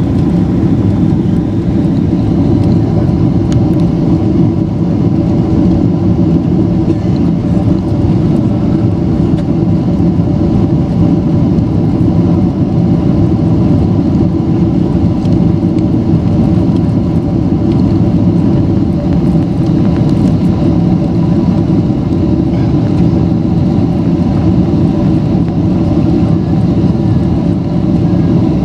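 Steady cabin noise inside a Boeing 767-300ER in flight: a loud rush of airflow and the drone of its Rolls-Royce RB211 engines, with a few steady engine tones above the roar.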